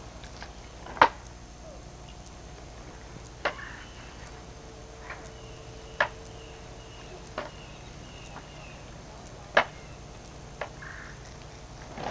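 A series of six sharp knocks or clacks, one to two and a half seconds apart, over a faint steady hum.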